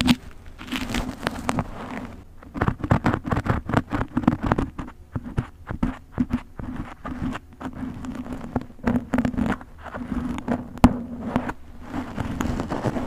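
Close-up scratching and crackling of a thin pointed tool drawn and tapped through hair in quick, irregular strokes, over a low steady hum.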